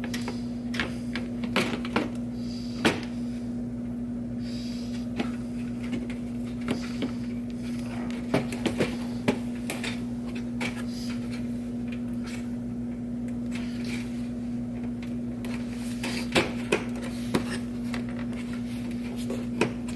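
Scattered light clicks and knocks of plastic parts being handled and pried as the badge is worked off a car's front grille, over a steady low hum.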